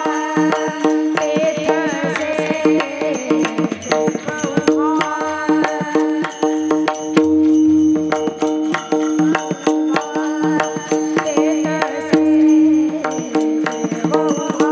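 Marathi Varkari bhajan music: a steady drone with a wavering, ornamented melody above it, over tabla and dense, regular strikes of small hand cymbals.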